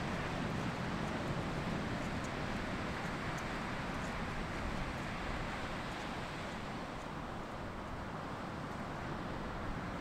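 Ocean surf washing steadily on the beach, a little louder in the first half and easing off.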